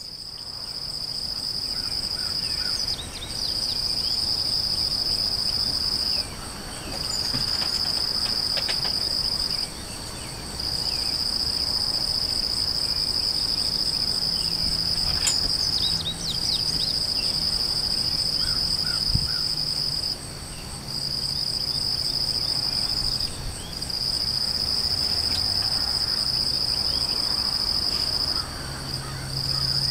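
Insects trilling in a steady high-pitched chorus that breaks off briefly every few seconds, with a few faint bird chirps and a low hum in the second half.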